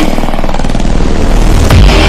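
Loud cinematic logo-intro sound effect: a dense rumbling whoosh over music, with a heavy boom near the end.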